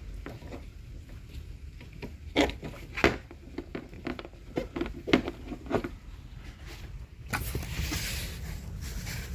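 Sharp plastic-and-metal clicks and scrapes of a hose clip being worked onto a new heater hose connector by hand, then a steady hiss for the last two seconds.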